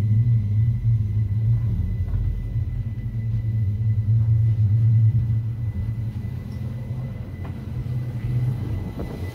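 Rhaetian Railway Bernina Express train running, a steady low rumble heard from inside the train that eases off in the second half.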